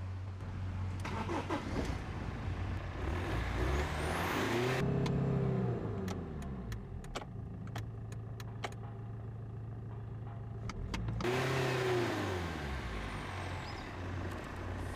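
BMW E46's engine running, heard from inside the cabin: it is revved twice, the pitch rising and falling back each time, and idles steadily in between. Several sharp clicks fall between the two revs.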